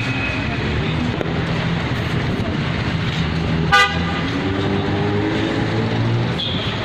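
Street traffic noise with one short horn toot a little past halfway.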